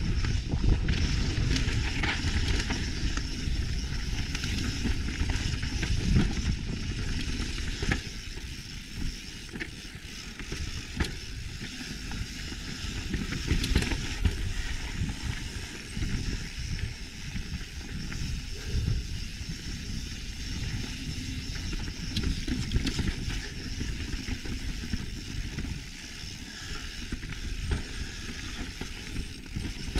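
Mountain bike riding down a rocky dirt and gravel trail: tyres crunching over loose stones, with scattered sharp clicks and rattles from the bike. Wind rumbles on the microphone throughout.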